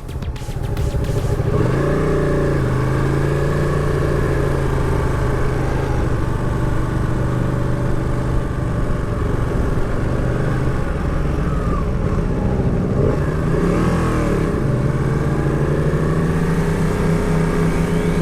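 Motorcycle engine running at steady road revs with wind and road noise. The engine note dips twice and climbs in small steps near the end.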